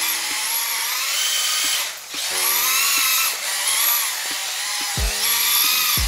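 Electric motor and drivetrain of an MST RMX 2.0 1/10 RC drift car whining as it is driven on rubber tires, the pitch rising and falling with the throttle several times, with a brief letup about two seconds in.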